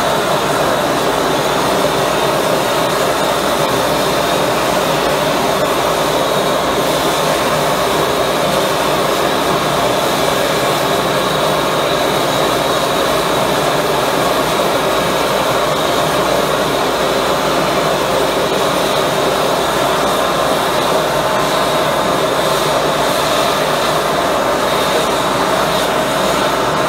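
High-velocity propane burner with compressed-air assist firing at full output: a loud, steady rushing noise that never lets up.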